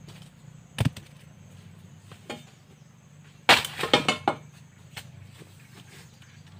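Long-handled metal digging bar chopping into the base of a Kim Sung bamboo shoot: one sharp blow a little under a second in, then a quick run of several loud, cracking strikes about three and a half seconds in, and one more soon after.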